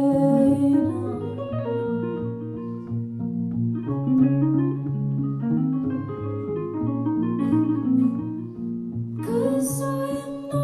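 Live guitar music: sustained, layered notes played on guitar. A singing voice comes in near the end.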